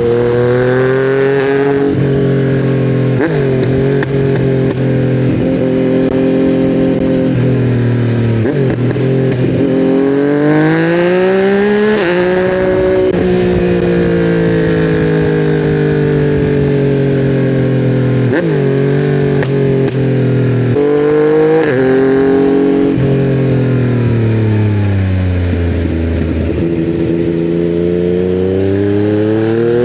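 2020 Yamaha MT-09's three-cylinder engine through custom headers and a titanium Akrapovic silencer, pulling hard up through the gears with a sudden brief dip in pitch at each of several upshifts. Later it winds down with a long falling pitch, then climbs again near the end.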